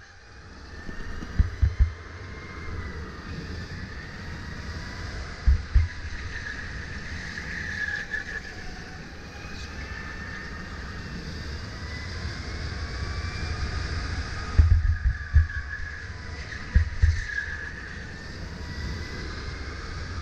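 Sodi RSX2 electric kart's motor whining, its pitch gliding up and down as the kart speeds up and slows for the corners. Several low thumps break in, the heaviest about three-quarters of the way through.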